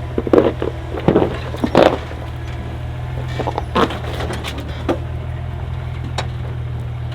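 Jeep engine running at low revs with a steady drone while rocks crunch and crack under the tyres on a rocky trail, with a cluster of sharp crunches in the first two seconds and a few more later.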